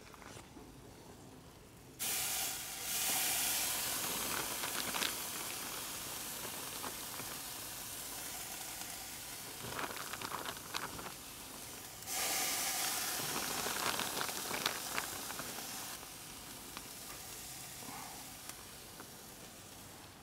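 Gochujang-marinated chicken thighs sizzling on a hot charcoal grill grate as they are laid on. The sizzle starts suddenly about two seconds in, slowly dies down, then flares up again about twelve seconds in as more pieces go down, with light crackles and clicks throughout.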